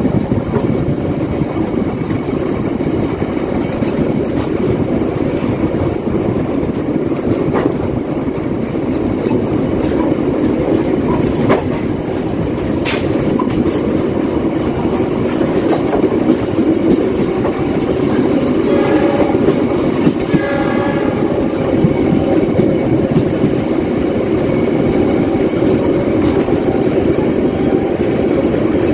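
Passenger train coach running at speed: a steady rumble of wheels on track, with a few sharp clacks. About two-thirds of the way through, a brief pitched tone with several notes rises over the rumble.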